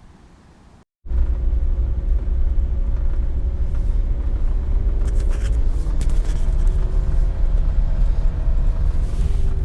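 A car driving, with a steady low rumble of road and engine noise that starts suddenly about a second in.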